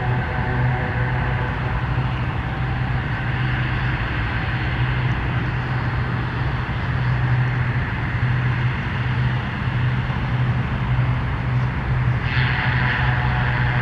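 Twin turboprop engines of a taxiing PZL M28 Bryza running at a steady low hum. Near the end a band of airband radio hiss cuts in abruptly as the receiver's squelch opens.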